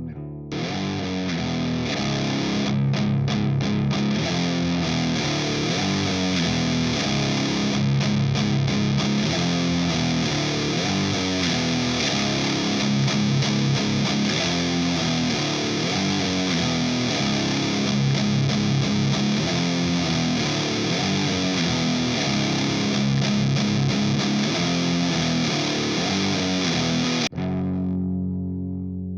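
Electric guitar tuned down to B, played through a Minotaur Sonic Terrors Fuzz and Burn pedal into a Matamp GT120 valve amp, chugging a heavy, thick fuzz riff over and over. Near the end the fuzzed sound cuts off abruptly and a thinner, less distorted tone rings on.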